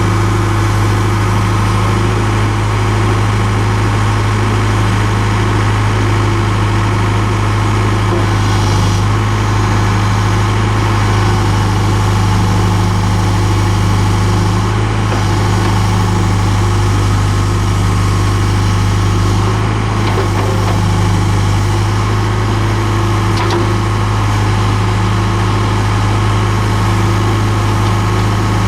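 John Deere 4045D four-cylinder diesel engine of a 310G backhoe loader idling steadily at a constant speed.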